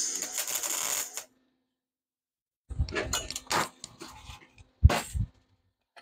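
Wire-feed (MIG) welding arc crackling on nails with stainless steel welding wire, a burst of about a second. After a pause come a couple more seconds of irregular pops and knocks, the stainless wire welding poorly on the nails.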